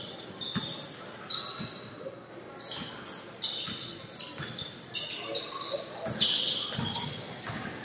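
A basketball dribbled on a hardwood gym floor, bouncing about once a second and faster near the end, with sneakers squeaking on the court. The sound echoes in a large gym.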